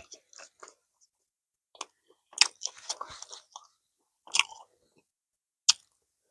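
Close-miked eating: wet chewing and mouth clicks in separate short bursts with silent gaps. The sharpest smacks come about two and a half seconds in and again near the end.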